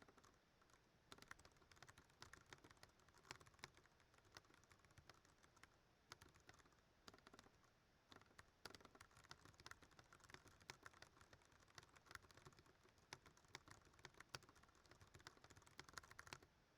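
Typing on a Ducky One 2 Mini mechanical keyboard with Cherry MX Brown switches: a rapid, uneven stream of keystroke clicks that stops abruptly near the end.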